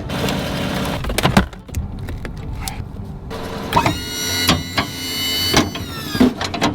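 Metal knocks and clanks from a Boss HTX snowplow being hooked up to a truck. About halfway in, a high mechanical whine lasts a couple of seconds and drops in pitch as it stops.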